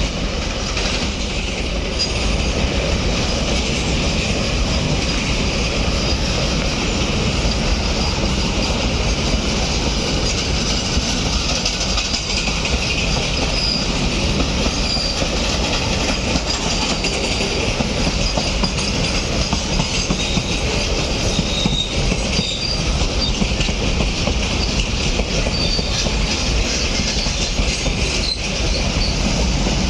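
Container freight train rolling steadily past, its steel wheels running on the rails in a continuous rumble, with brief high-pitched squeals now and then.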